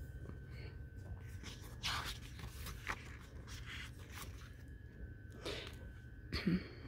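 Pages of a thick sticker book being turned by hand: soft paper rustles and flaps, about five times, over a low steady background hum.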